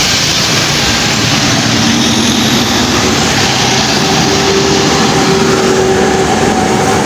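A bus engine running loudly under dense, steady noise, with faint held tones underneath that change pitch a few times.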